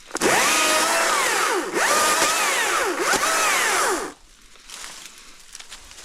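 Stihl MSA 220 battery electric chainsaw running: its motor whine rises, sags twice and recovers, then cuts off about four seconds in.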